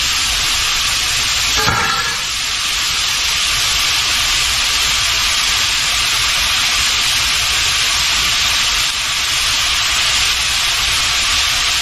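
Ground beef and sliced sweet peppers sizzling in a hot cast-iron skillet: a steady frying hiss.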